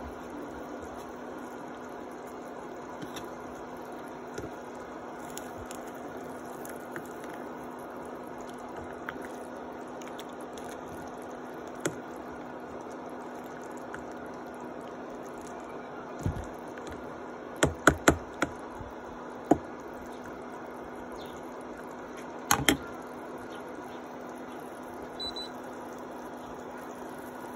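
Steady hum and hiss of an induction cooktop heating a stainless steel pot of soup. In the second half a ladle knocks sharply against the pot several times, in a quick cluster and then a pair a few seconds later.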